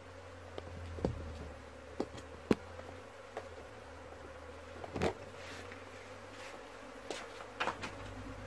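Honeybees buzzing in a steady low hum around a wooden hive box, with a handful of sharp taps scattered through, the loudest about two and a half and five seconds in.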